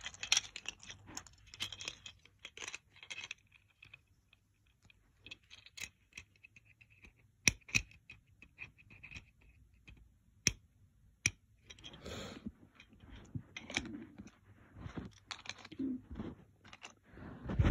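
Playmobil plastic toy parts being handled and clicked together as a figure's hand is fitted onto the luggage trolley: scattered light clicks and taps, a few sharper clicks in the middle, then a busier stretch of fiddling and rubbing near the end.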